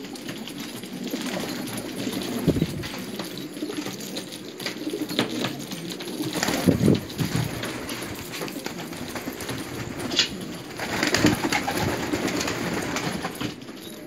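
Domestic pigeons cooing, a low, continuous murmur of overlapping coos that swells louder about a quarter of the way in, near the middle and again near the end.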